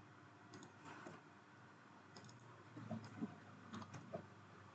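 Faint computer keyboard keystrokes, a scattered handful of soft clicks over a few seconds against near silence.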